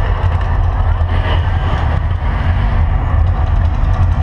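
Loud, steady deep rumble of the Mirage volcano show's eruption soundtrack over its loudspeakers, the low end dominating throughout.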